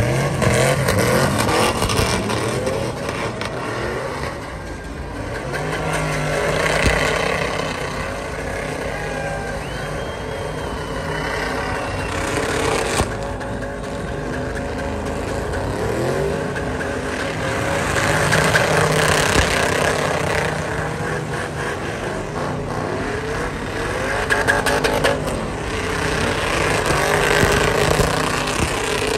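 Pickup truck doing doughnuts in a burnout: the engine revs hard, its pitch climbing and falling repeatedly as the rear tyres spin and smoke on the pavement. The noise swells and eases several times.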